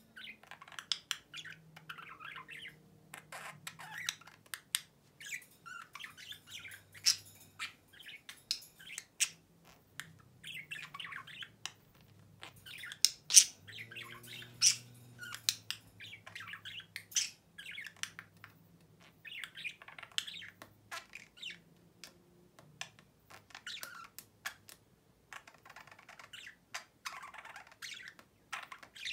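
Male budgerigar warbling and chattering to its own reflection in a mirror: a long, rambling run of soft warbles and squeaks broken by many sharp clicks.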